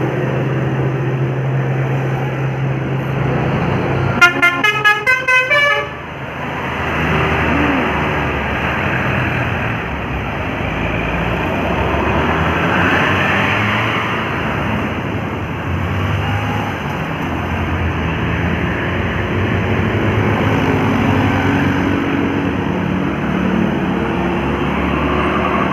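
A bus telolet horn, a multi-tone musical horn, plays a quick run of about six notes about four seconds in, lasting under two seconds. Around it, heavy vehicle engines and road traffic run steadily.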